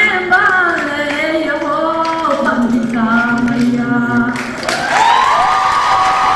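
Unaccompanied singing, a melody with long held notes; about three-quarters of the way in a new note starts and is held steadily.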